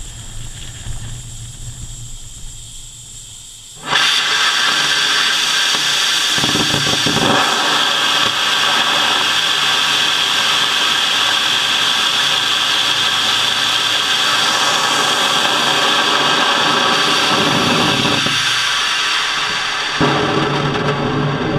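HTPB/nitrous oxide hybrid rocket motor firing on a static test stand: it lights about four seconds in with a sudden loud, steady rushing noise that holds and eases slightly near the end.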